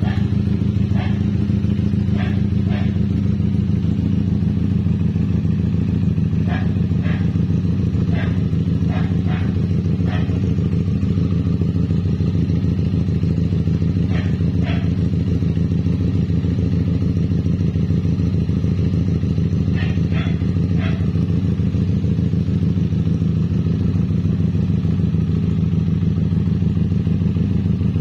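Benelli TNT 249S's 249 cc parallel-twin engine idling steadily through an aftermarket custom exhaust, holding one even pitch with no revs.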